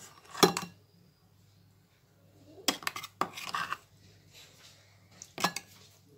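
A metal spoon clinking and scraping against dishes as a thick, blended spice paste is spooned out onto chicken: three short bouts of clatter, about half a second in, around three seconds in, and near the end.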